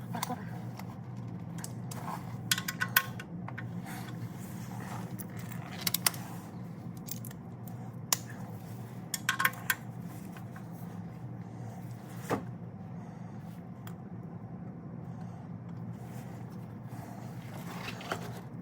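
Scattered sharp metallic clinks of hand tools, a 17 mm wrench or socket working on the oil pan drain plug, over a steady low hum.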